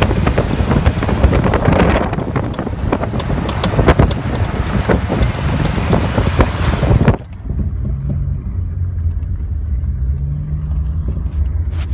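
Jeep Cherokee on the move: dense road and wind noise with irregular sharp pops, the rear popping noise whose source is being sought. About seven seconds in, the hiss cuts off abruptly, leaving a low engine and road drone with a few faint clicks near the end.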